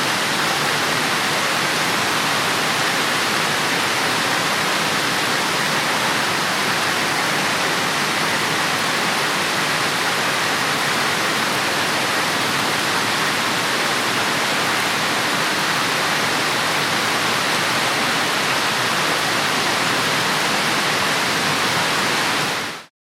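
Heavy rain falling steadily, a dense, even hiss of raindrops. It fades out quickly near the end.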